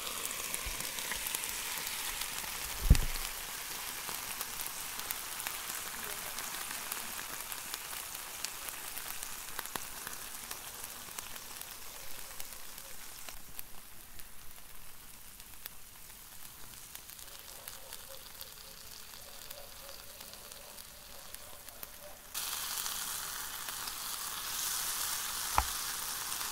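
Melted ice cream and a waffle cone sizzling and bubbling on the hot plates of an electric waffle maker, a steady crackling hiss that eases off in the middle and picks up again near the end. A sharp thump about three seconds in and a small click near the end.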